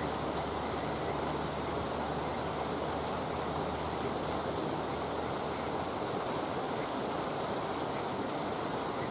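Wood campfire burning with a steady rushing hiss and a few faint crackles. A low hum under it fades out about six seconds in.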